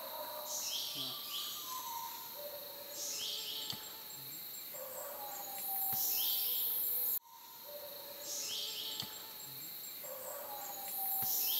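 Rainforest ambience: a steady high insect drone with repeated bird calls, short falling whistles and lower drawn-out notes. It cuts off abruptly about seven seconds in and the same stretch starts again.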